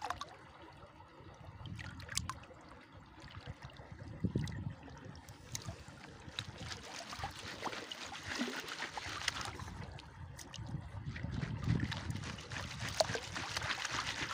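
Shallow water sloshing and trickling as hands and a plastic basket of freshly gathered kupang mussels are moved through it, loudest near the end. There are a few light clicks and intermittent low rumbles.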